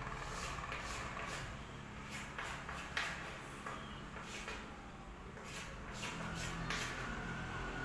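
Chalk scratching on a blackboard in a run of short, irregular drawing strokes, the sharpest about three seconds in.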